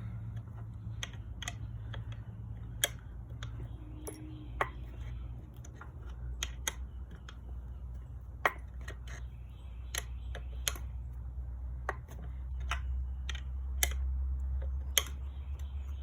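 Irregular light clicks and taps of metal parts being handled while the grinder's blade is changed and its nut tightened, over a steady low hum.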